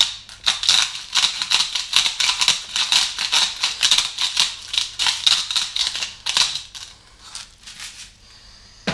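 Hand salt grinder being twisted, grinding Himalayan pink salt crystals: a rapid, gritty crunching that runs steadily for about six and a half seconds, then grows fainter.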